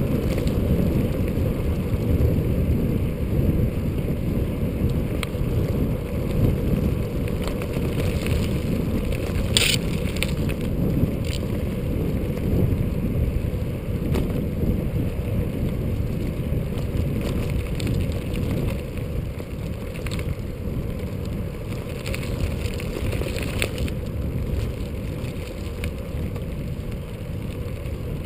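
A bicycle rolling along a paved road, heard mostly as wind rushing over the point-of-view camera's microphone: a steady, low, buffeting noise with tyre hum beneath it. A sharp click or rattle comes about ten seconds in.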